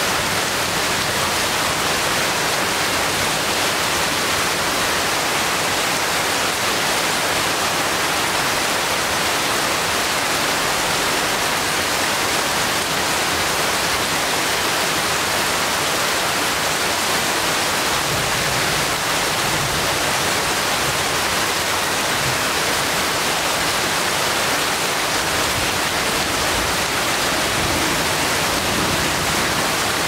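Heavy rain falling steadily on forest foliage: a dense, even hiss with no letup.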